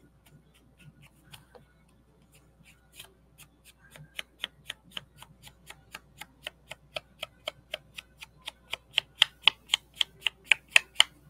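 Rapid, regular dabbing of an ink applicator onto paper to colour it, about four taps a second, faint at first and growing louder from about four seconds in.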